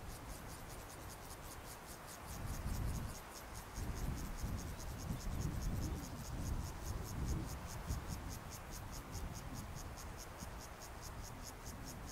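An insect chirping in a fast, even pulse, about six or seven pulses a second, over a low, uneven rumble that swells from about two seconds in to about eight.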